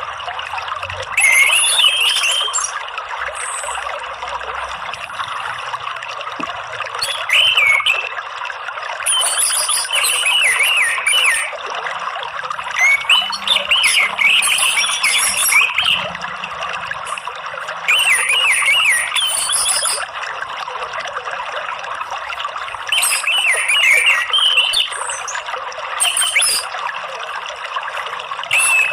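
Orange-headed thrush singing short warbled, whistled phrases every couple of seconds over a steady rush of flowing water.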